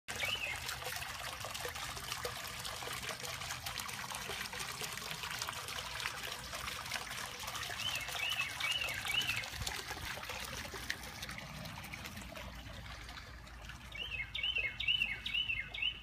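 A garden pond fountain splashes steadily into the water while a songbird sings short phrases of repeated slurred notes over it. The splashing fades out late on, and the bird's last phrase, near the end, is the loudest sound.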